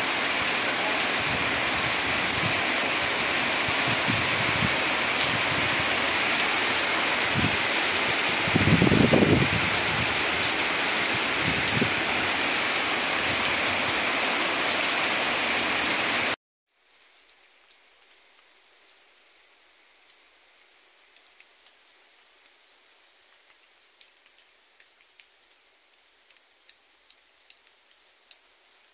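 Heavy rain pouring steadily, with a brief louder low surge about nine seconds in. About sixteen seconds in it cuts off suddenly to a much fainter hiss with scattered small ticks.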